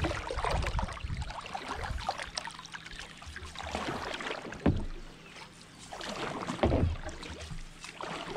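Canoe paddle strokes: an otter-tail wooden paddle blade dipping, pulling and swirling water beside the hull, with a sharper splash about halfway through and another near the end.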